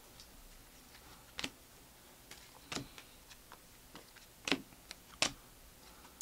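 Optic basketball trading cards being flipped through by hand, each card snapping off the stack with a sharp click. Four louder clicks come at uneven intervals, with fainter ticks and rustles between them.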